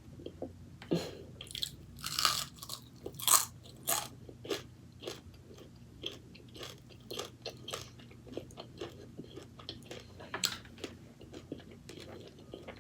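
Close-miked mouth sounds of a person chewing roasted pork with its skin on, with irregular crunches. The loudest bites come about two and three and a half seconds in.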